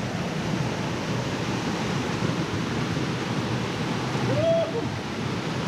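Steady rush of flowing water, a stream running over rocks, with a brief short voice sound about four and a half seconds in.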